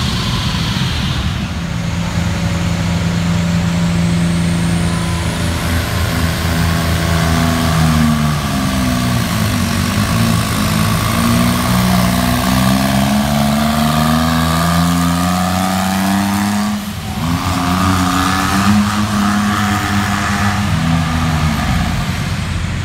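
Small turbocharged indirect-injection diesel engines of pro-stock pulling garden tractors running hard on a pull. They hold a steady high speed at first, their pitch falls and rises through the middle, and there is a short dip about three quarters of the way in.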